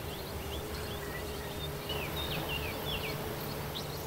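A flying insect buzzing steadily at one even pitch, with a few short, high, falling bird chirps scattered over it.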